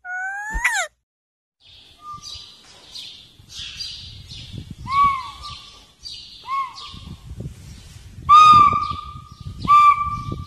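A horse blowing through a plastic recorder held in its mouth: a string of breathy whistled notes at about the same pitch, each bending up and then down, over the rush of its breath, with the longest and loudest notes near the end. A short rising squeak from a parakeet comes right at the start.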